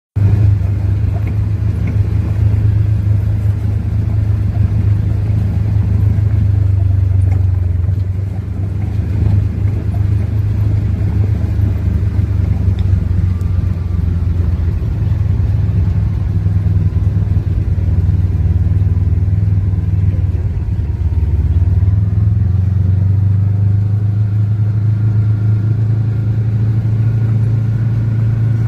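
A vehicle engine running steadily under way, a low drone that eases briefly about eight seconds in and shifts slightly in pitch about three-quarters of the way through.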